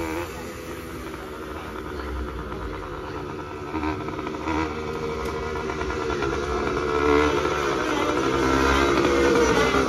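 A vehicle engine running, growing steadily louder over the last few seconds.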